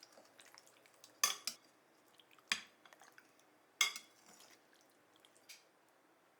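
Kitchen utensils knocking and clinking against cookware: about five sharp, separate knocks at uneven intervals, each with a brief ring.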